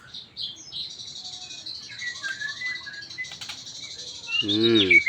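A murai songbird singing a varied run of short chirps and whistled notes. Near the end a person's voice is briefly louder than the bird.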